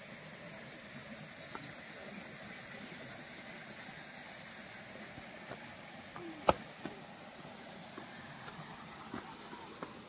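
Steady outdoor background noise with a few light clicks and one sharp knock about six and a half seconds in.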